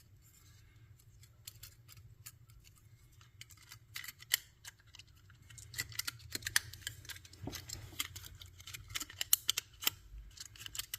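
Light clicks and taps of small plastic and metal parts being handled and fitted by hand while reassembling a radio control head. The clicks are irregular, sparse at first and busier from about four seconds in.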